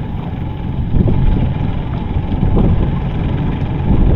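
Wind buffeting the microphone on a small boat: a steady low rumble, with stronger gusts about a second in and again near the end.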